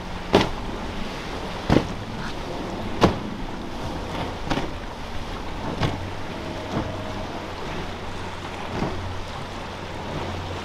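A powerboat running through choppy inlet water: a steady low engine hum under wind and water noise, with a series of sharp knocks about every second and a half, loudest in the first three seconds.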